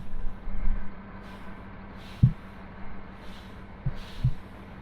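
Tractor engine running steadily under load while mowing hay, with a few sharp knocks about two, four and four and a half seconds in and short soft hisses.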